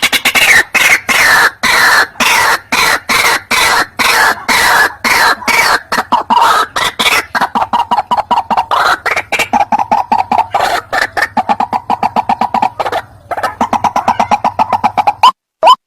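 White-breasted waterhen calls: a long run of rapid repeated croaking notes that speed up in the middle. After a brief break near the end they switch to sharp rising notes about twice a second.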